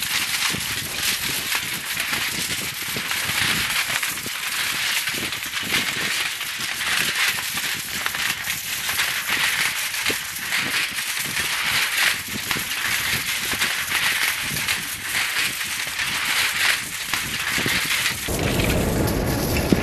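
Crinkly plastic sheeting flapping in the wind, with a dense, fluttering crackle and rustle that swells and fades in gusts. Near the end a deep rumble comes in underneath.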